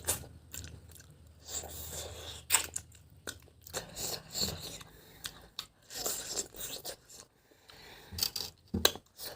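A person eating close to the microphone: irregular chewing and crunching, with short biting and smacking clicks.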